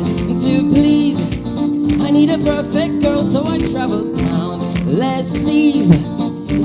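A live band playing a song: a voice singing over guitar and sustained instrumental accompaniment.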